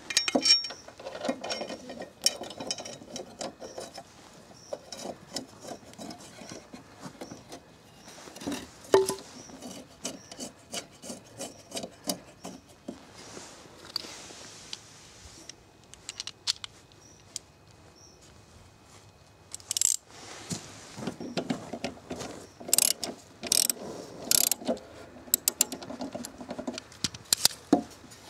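Hand work on a lawn mower's cutting deck: a new steel blade fitted onto the spindle and its bolt tightened, with a wooden block wedged against the blade. Irregular clinks, scrapes and knocks of metal and wood, busiest near the end.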